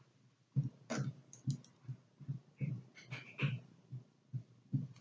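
Small metal clicks of a hoop earring being handled and fastened, over a soft rhythmic pulsing about two to three times a second.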